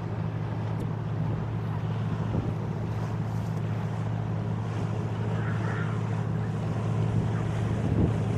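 A boat motor running steadily with a low hum, with wind buffeting the microphone.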